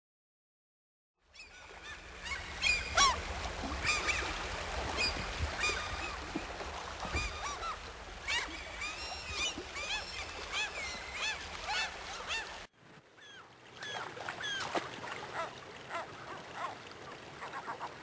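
A flock of water birds calling over one another in many short honking calls, starting about a second in over a low rumble. About two-thirds of the way through the sound cuts abruptly, the rumble drops away, and the calling carries on.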